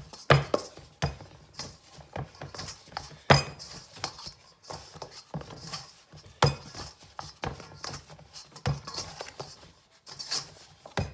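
A stainless steel mixing bowl clanking and scraping as a plastic dough scraper pushes and smears sticky, soft yeast dough around its sides: a run of irregular rubbing strokes and small knocks, with a few louder clanks every two to three seconds.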